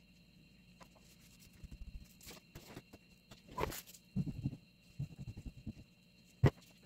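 Kitchen knife spreading cream across a sponge cake layer: intermittent soft scraping and crackling of the blade on cream and cake, with one sharp click near the end.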